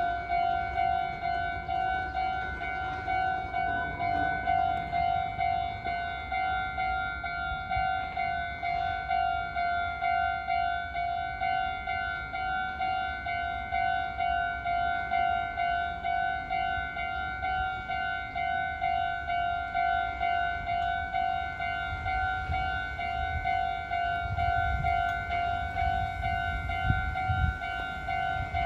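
Electronic level-crossing warning bell ringing in an even, rapid rhythm of a little under two strokes a second, signalling an approaching train. From about two-thirds of the way in, the low rumble of an approaching electric train grows beneath it.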